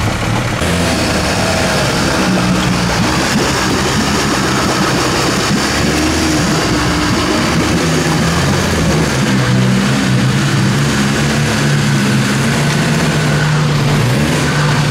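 Off-road trial car's engine revving up and down under load as it drags itself out of a flooded mud pit, growing stronger near the end.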